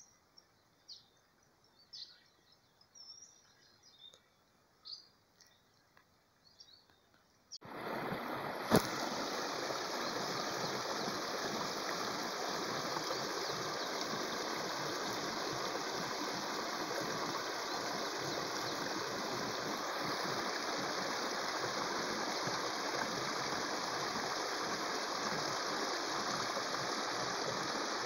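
Faint, scattered bird chirps at first. About seven and a half seconds in, the sound cuts suddenly to the steady rush of a small waterfall pouring into a stream, with one sharp click a second later.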